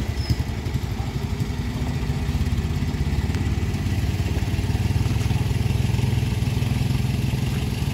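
Mitsubishi L300 pickup's engine running under load as the heavily loaded truck creeps forward, a low pulsing rumble that grows louder and steadier about two seconds in.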